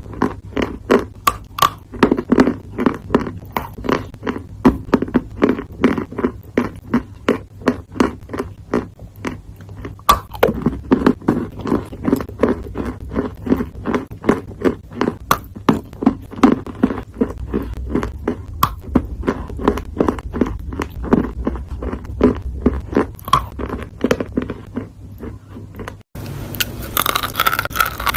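A person chewing something crunchy close to the microphone, a steady rhythm of about two to three chews a second. Near the end it cuts suddenly to a crisper, hissier crunching.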